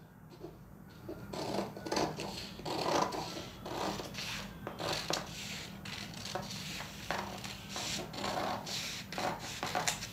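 Scissors cutting through a sheet of paper pattern in a run of uneven snips, the blades rasping through the paper, starting about a second and a half in.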